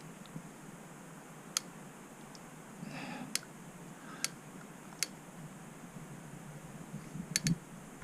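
RockShox Pike suspension fork lower leg shaken by hand, giving about six sharp clicks at irregular intervals, two in quick succession near the end. The click is the fork's unexplained noise, which the rider hears on every small bump and traces to one of two spots on the leg.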